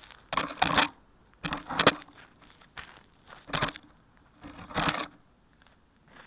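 Footsteps crunching on gravel: several uneven steps about a second apart, the last about five seconds in.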